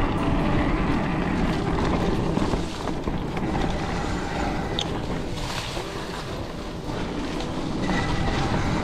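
Riding noise of a fully rigid 2017 SE OM Duro with fat 27.5 × 3-inch tyres rolling over a leaf-covered dirt trail: a continuous low rumble from the tyres with constant small rattles and knocks from the bike over bumps, plus some wind on the microphone.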